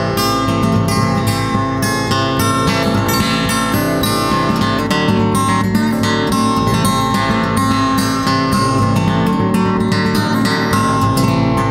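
Music led by quickly plucked and strummed acoustic guitar, a steady run of rapid notes.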